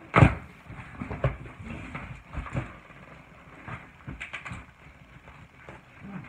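A large cardboard shipping box being handled and opened: a loud thump just after the start, then scattered knocks and scrapes of cardboard.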